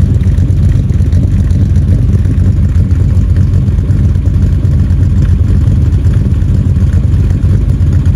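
Nissan Skyline C10 'Hakosuka' exhaust at the twin-tip tailpipe, the engine running steadily at idle with a deep, even note.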